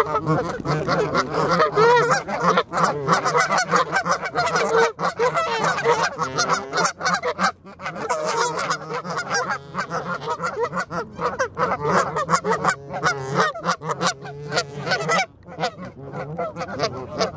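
Canada geese calling and honking close to the microphone, with calls overlapping almost without pause. Many sharp taps and clicks come through as well.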